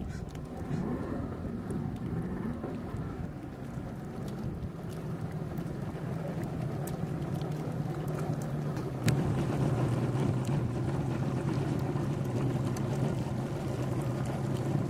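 A fishing boat's motor running at low speed, a steady drone whose pitch wavers in the first few seconds, with water and wind noise. It gets a little louder about nine seconds in.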